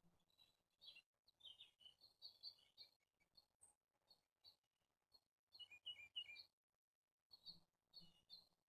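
Faint songbirds chirping: short high notes in scattered quick runs, with a busier cluster a little past halfway and a brief gap just after it.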